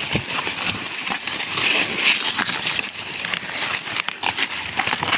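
Dry corn plants rustling and crackling as ears are worked off the stalks: a dense, steady crinkle of dry leaves and husks, peppered with many small snaps and clicks.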